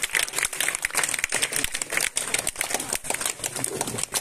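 Scattered hand clapping from an audience: a dense, irregular patter of claps with crowd chatter underneath.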